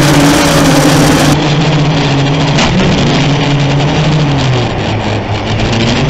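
Racing mini quadcopter's brushless motors and propellers whining in flight: a steady buzzing drone whose pitch shifts slightly as the throttle changes. The sound changes abruptly a little over a second in, where the recording switches.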